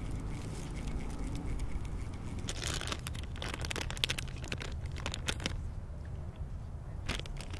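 Crinkling of a plastic soft-bait bag as it is handled, in a cluster of crackles between about two and a half and five and a half seconds in, then a few more near the end, over a steady low rumble.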